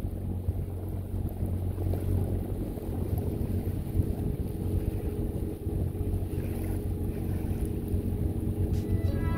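Boat engine running steadily under way, a low even drone, with wind on the microphone.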